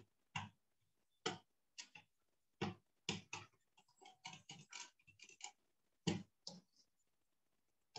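Wire whisk clicking and tapping against the sides of a plastic container as it breaks up whole tomatoes into a sauce. The taps are faint and come in an irregular run, a few each second.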